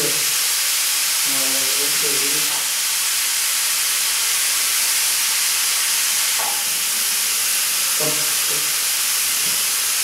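Six aluminium pressure cookers on gas burners venting steam at pressure: a steady, loud hiss.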